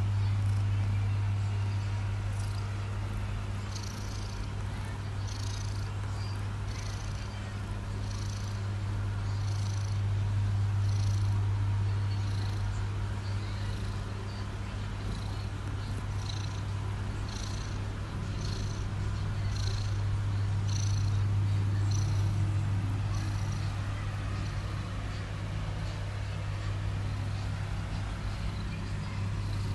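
Snoring, really loud: a steady low rumble with a breathy rasp repeating about once a second through most of it.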